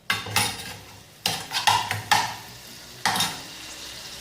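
A utensil stirring and scraping in a pot of dried figs and garlic cooking in olive oil and water, in about six separate strokes. A steady sizzle grows louder near the end.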